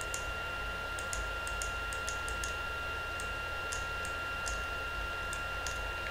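Computer mouse clicking: a dozen or more short, irregular clicks from the buttons and scroll wheel, over a steady hiss with a faint high whine.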